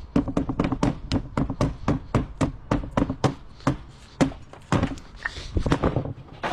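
Rapid, even series of sharp knocks or taps, about four to five a second, slowing to a few scattered knocks near the end.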